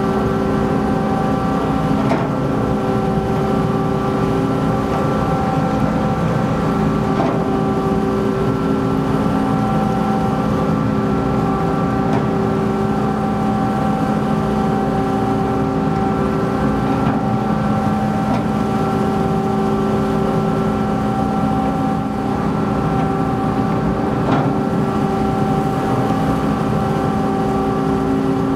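Ferry machinery running with a steady drone of several held tones, heard on the open car deck, while vehicles drive aboard over the loading ramp, with a few sharp clunks.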